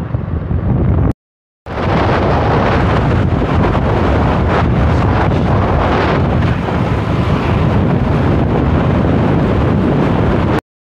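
Wind buffeting the microphone of a motorbike moving along a road, with the bike's running noise underneath. About a second in, the sound cuts out completely for half a second.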